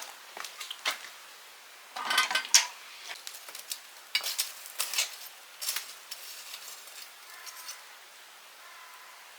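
Dishes and metal utensils clinking and knocking as they are handled: a loud cluster of clinks about two seconds in, then scattered single knocks.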